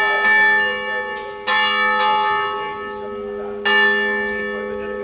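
A single church bell swinging full circle on its wheel in the Ambrosian system (the distesa), its clapper striking about every two seconds. Each stroke's ring carries on until the next.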